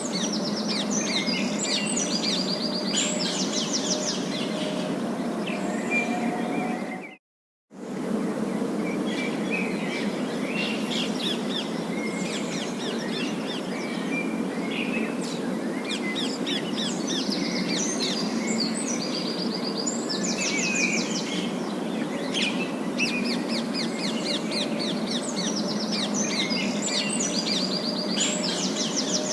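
Parakeets chirping and warbling busily over a steady low background noise. The sound cuts out completely for under a second about seven seconds in, then resumes.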